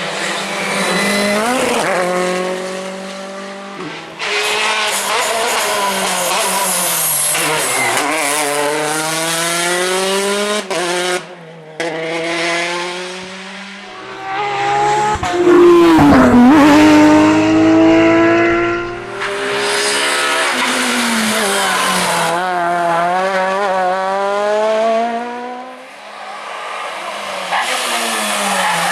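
Rally cars at full throttle on a special stage, engines revving up through the gears and lifting off, again and again across several short passes. The loudest pass comes about halfway through, with a sharp dip in engine pitch as the car brakes and turns.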